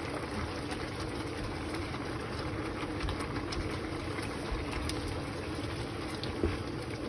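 Stock simmering in a cast-iron pan as rice vermicelli is stirred in with a wooden spatula: steady bubbling with a few faint scrapes and taps.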